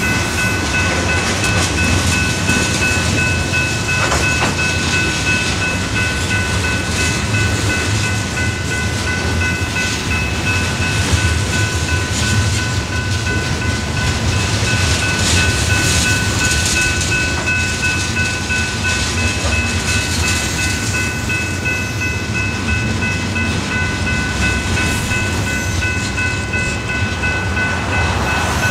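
Loaded freight train's covered hopper cars rolling past at steady speed: a continuous rumble of steel wheels on rail with scattered clicks, and a thin steady high-pitched ring over it.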